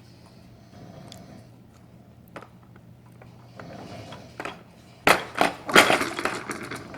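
Faint, slow snoring breaths from a sleeping man, twice. From about five seconds in comes a burst of loud clattering and knocking from a baby's Jumperoo activity jumper as the baby bounces and bangs its toys.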